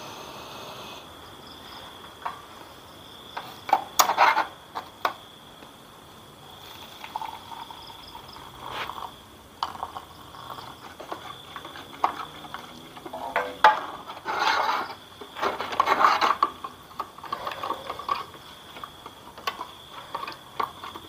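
Gas hiss of a portable camping stove under a boiling pot, cutting off about a second in. Then clinks and knocks of an aluminium camping pot and a metal spoon, hot water poured from the pot into a plastic mug, and the spoon stirring and clinking in the mug.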